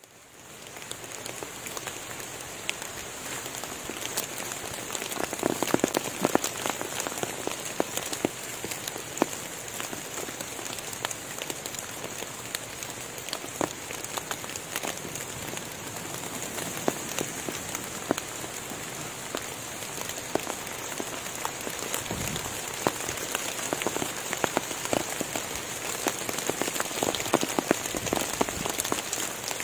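Steady rain falling on forest foliage, with many separate drops heard close by and a steady high hiss above it; it fades in during the first second.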